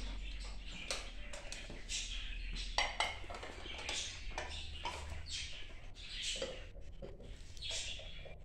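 Dishes and drinking glasses being handled and set down: light, irregular clinks and knocks, a few of them sharper.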